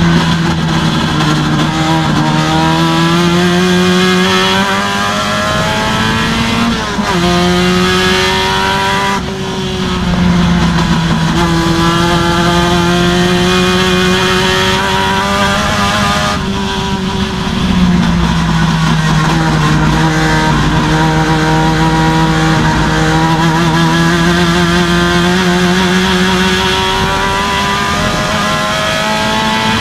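Race car engine heard from inside the cockpit, running hard at high revs around the circuit. Its note shifts pitch briefly about seven, nine and seventeen seconds in.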